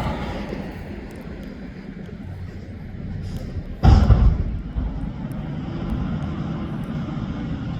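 Steady low rumble of a heavy diesel garbage truck, a Mack McNeilus front loader, on the move. About four seconds in, a sudden loud burst of noise lasts roughly half a second.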